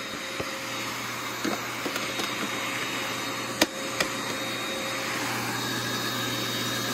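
Shark AeroPro hand-vac motor running steadily inside a Bissell PowerGroom Pet upright body, where it sits unsealed, giving only modest suction: a steady hiss with a hum and a high whine. Two sharp knocks come about half a second apart a little past the middle.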